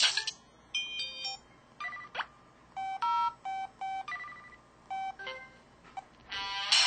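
Sky IM-S110K phone playing its built-in sound effects one after another: a series of short electronic beeps and chimes of different pitches, each under a second with short gaps between them, and a brighter, fuller chime starting near the end.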